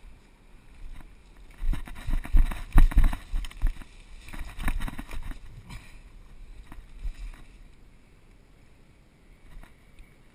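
Footsteps and brushing through grass and undergrowth, with irregular heavy thumps knocking the microphone. They are loudest in two clusters between about two and five seconds in, then fade to a few light knocks.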